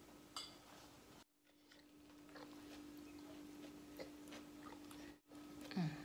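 Quiet room with a steady low hum and faint clicks and knocks from eating and handling dishes. Near the end, a short sound sliding down in pitch is the loudest thing.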